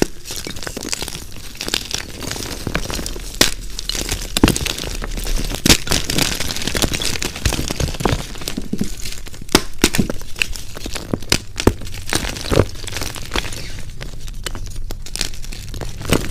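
Blocks of gym chalk crushed and crumbled between the fingers: a continuous dry crunching and grinding, with many sharp snaps as chunks break apart.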